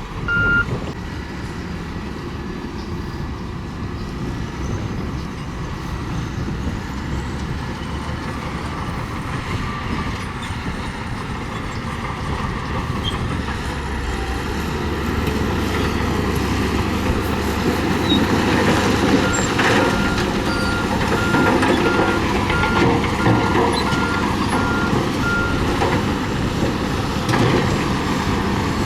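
Heavy diesel earthmoving machinery running at work, getting louder about halfway through. A reversing alarm beeps right at the start, then beeps steadily again for about six seconds, starting near twenty seconds in.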